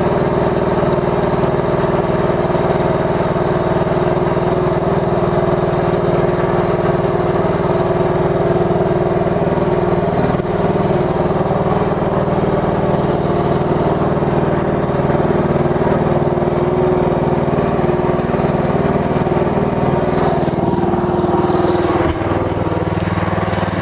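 Mygale 500 micro excavator's small engine running steadily, driving the hydraulic boom as it lifts a suspended engine block.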